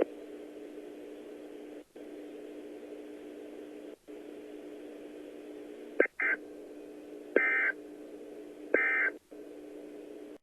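Three short bursts of Emergency Alert System end-of-message data tones, a two-tone electronic screech repeated about a second and a half apart, starting about six seconds in. They mark the end of the broadcast message and play over a low steady hum in the broadcast audio that briefly drops out twice.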